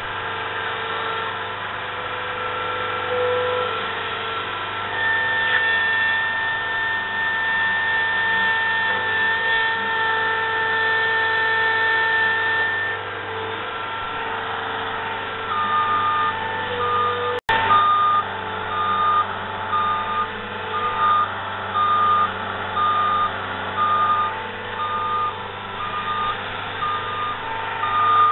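Skid steer's diesel engine running steadily, its note shifting as it works. Past the halfway point its backup alarm starts beeping, a steady single-pitch beep a little more than once a second, over the engine.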